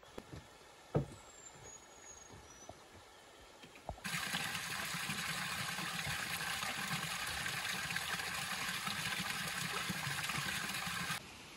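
Rushing water, a steady even hiss with a low rumble underneath, that starts abruptly about four seconds in and cuts off near the end. Before it there is only faint outdoor quiet with a single click about a second in.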